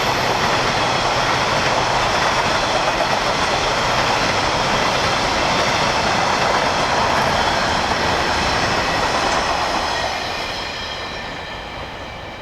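Train running past on the rails, a steady rolling noise that fades away over the last couple of seconds as it moves off.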